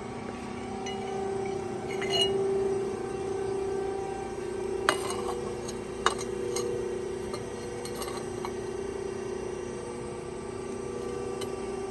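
Hydraulic pump of a CNC press brake humming steadily, with a few sharp clinks of bent steel plate brackets being handled and set against each other, the loudest about five seconds in and again a second later.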